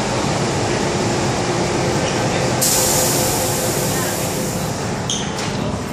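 MTR M-Train doors and platform screen doors closing in an underground station: a sudden hiss lasting about two seconds partway through, then a couple of short knocks as the doors shut, over steady platform noise and passenger chatter.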